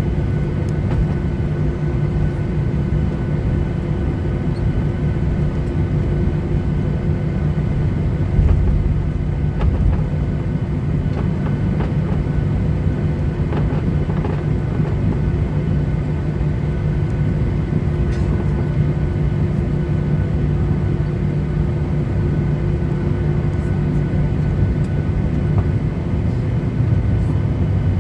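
Boeing 737-800's CFM56 engines running at a steady low power, heard from inside the passenger cabin as an even drone with a few fixed hum tones, while the jet rolls on the ground. A couple of low thumps come about a third of the way in, the wheels going over bumps or joints in the pavement.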